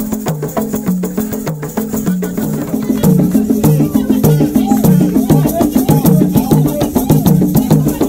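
Live traditional Congolese dance music: hand drums and rapid shaker rattles over a repeating low melodic figure. The music gets louder and fuller about three seconds in.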